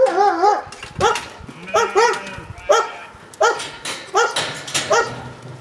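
Goats and sheep bleating: one long wavering bleat at the start, then a run of short bleats about every 0.7 s.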